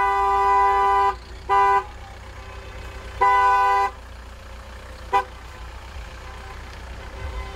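Two-tone car horn: a long blast that stops about a second in, then two short honks and a quick tap about five seconds in.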